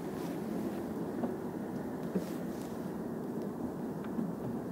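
A steady low rumble, with a couple of light clicks; the clearer click comes about two seconds in.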